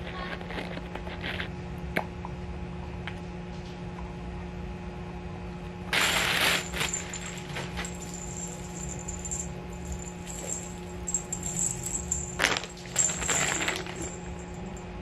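Unboxed pet items being handled: plastic packaging rustles in two loud bursts, about six seconds in and again near the end, and the clips of a pet leash click and clink, over a steady low hum.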